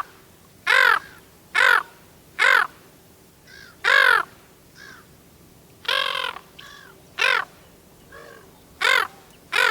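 Brown-headed gull calls: a series of short, harsh, downward-arching calls, the loud ones coming roughly once a second, with fainter calls between them and one slightly longer call about six seconds in.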